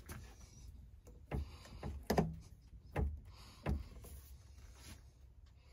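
A handful of short knocks and clicks as CPVC pipe and a tee fitting are handled and pushed together.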